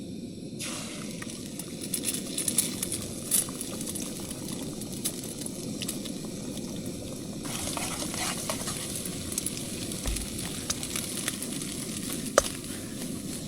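Eggs and cucumber stir-frying in a small camping pan: a steady sizzle, with a utensil scraping and tapping against the pan. The sizzle starts about half a second in and grows louder about seven and a half seconds in.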